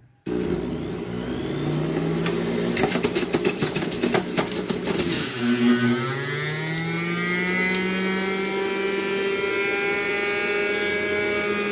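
Kyowa juice extractor's motor switched on with a sudden start and running with a steady whine. From about two to five seconds in, produce pushed down the chute crunches and rattles against the spinning cutter, then the whine climbs in pitch and runs steadily.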